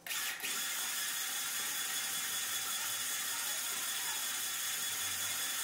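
MIG welder's wire feeder running steadily, its drive rolls pushing copper-silicon filler wire out through the torch.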